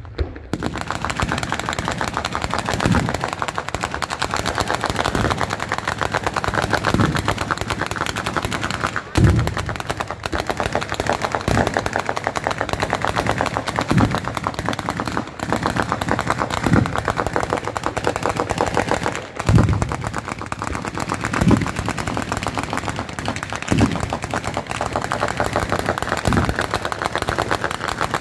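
Bolognese-style ground firework battery: a long chain of firecrackers going off in a rapid, unbroken crackle, with a heavier boom about every two seconds.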